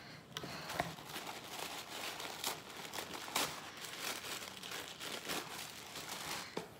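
Tissue paper crinkling and rustling in irregular crackles as it is unfolded and pulled out of a box.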